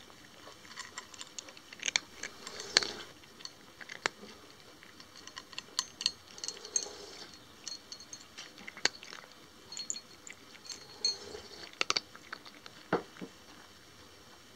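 A cat crunching dry kibble, in irregular sharp crunches and clicks that stop shortly before the end.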